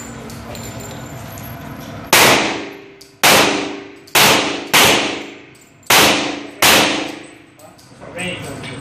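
Handgun fired six times at uneven intervals, each shot echoing and fading in an enclosed indoor range, then a weaker sharp knock near the end.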